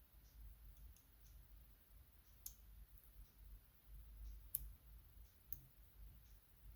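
Faint small metallic clicks from a euro cylinder lock being worked apart with small tools: a few light ticks and three sharper clicks in the second half.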